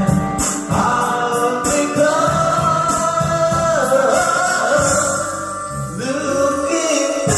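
Videoke song: singing in long held notes with gliding pitch over an instrumental backing track.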